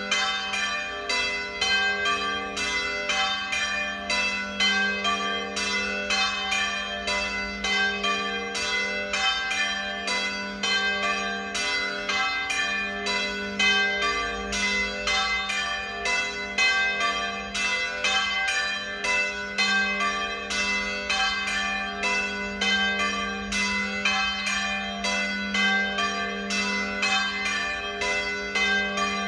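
A peal of three church bells swinging and ringing together (the plenum), strokes overlapping at about two a second with the tones ringing on between them.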